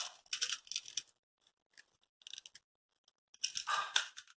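Crisp fried fryums (burralu) crunching as they are bitten and chewed, in two short bouts of crackling: one in the first second and another near the end.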